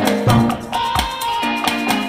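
Background music: an upbeat Latin-style track with percussion and a bass line on a regular beat.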